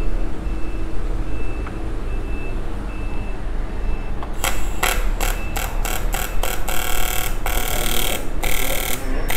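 Welding arc on a cracked motorcycle crankcase. The arc strikes about four and a half seconds in as a quick series of short stabs, then runs in longer stretches.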